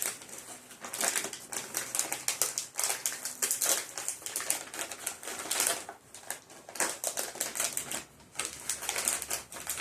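Plastic snack bag crinkling and crackling as it is opened and handled, in a rapid, uneven run of crackles with short lulls about 6 and 8 seconds in.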